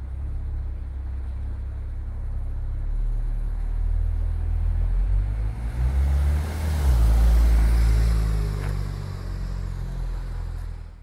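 Porsche 911 Turbo's twin-turbo flat-six engine pulling away and driving past, its note rising in steps. It is loudest about seven seconds in as the car passes, with tyre hiss, then fades as it drives off.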